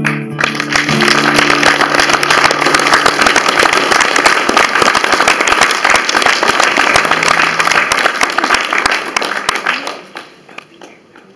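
Audience applauding at the end of a song: dense, steady clapping that drops off sharply about ten seconds in, leaving a few scattered claps. The song's last sung chord fades out underneath in the first second.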